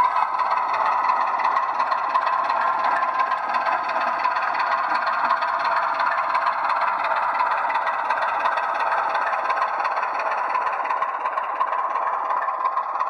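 00 gauge model locomotive running on the layout: a steady motor hum with a continuous rattle and clatter of wheels over the track.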